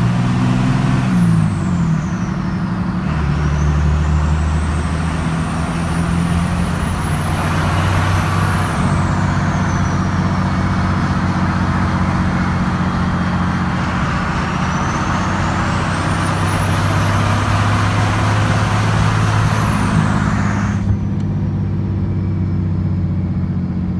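1999 24-valve Cummins 5.9 L inline-six turbo diesel running under way, with a loud high turbo whistle through an aFe Stage 2 cold air intake with the compressor silencer ring removed. The whistle falls away about two seconds in, climbs slowly and drops off near the ten-second mark, then climbs again and fades out near the end, each rise following the turbo spooling up.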